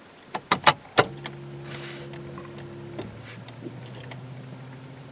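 Ignition key clicking in the lock of a 1985 Camaro with a 305 TPI engine, then the key turned to on and the fuel pump humming for about two seconds as it primes before cranking. A fainter steady hum follows.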